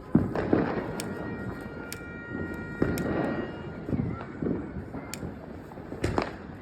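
Firecrackers going off: a sharp bang just after the start, then continuous crackling and popping, with further bangs about three seconds in and near the end. A faint steady whistle runs through the middle.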